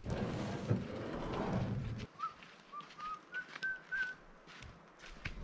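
About two seconds of rustling noise, then a run of about six short whistled notes that climb gently in pitch.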